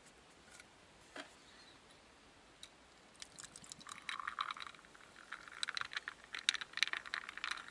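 A carbonated drink poured from a can into a glass, fizzing with a dense crackle of small pops. It starts about three seconds in, after a single light knock about a second in.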